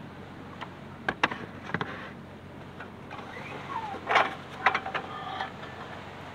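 Things being handled inside the back of a car: a few sharp knocks and clicks, then a louder run of scraping, knocking and squeaky rubbing about four seconds in, over a steady hiss.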